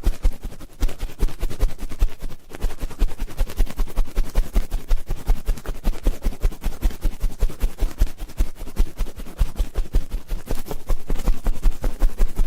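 Ear-cleaning ASMR sounds: an ear-cleaning tool scratching and rubbing close on the microphone in rapid, continuous strokes.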